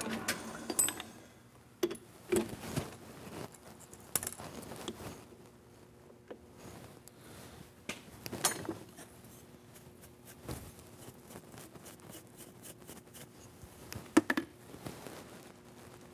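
A metal lathe winding down, then scattered sharp metallic clicks and knocks from tools and the steel workpiece being handled in the shop, over a faint steady hum.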